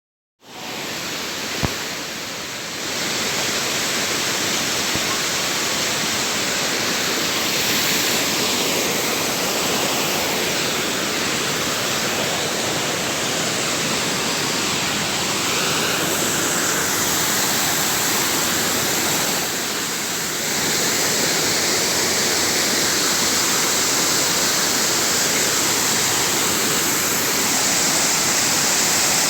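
Waterfall pouring, a steady rush of water heard close up, with one short click about a second and a half in.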